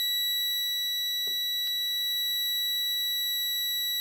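Electronic alarm buzzer sounding one continuous, unbroken high-pitched tone. It is the fire-service recall alarm, which is very annoying.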